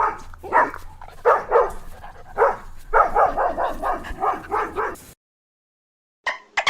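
A series of animal calls: several short pitched cries, then a quick run of pulsed calls that stops about five seconds in. Music starts near the end.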